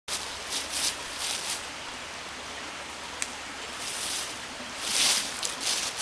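Footsteps crunching through dry fallen leaves, a few scattered steps at first and louder ones near the end, over a steady background hiss. A single sharp tick about three seconds in.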